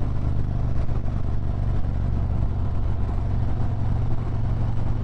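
Harley-Davidson Road Glide's V-twin engine running steadily while riding at a constant speed, with road and wind noise.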